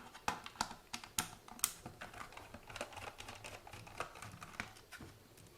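Small screwdriver taking the screws out of the plastic handle of a WLtoys 144001 radio controller: a run of light, irregular clicks and ticks.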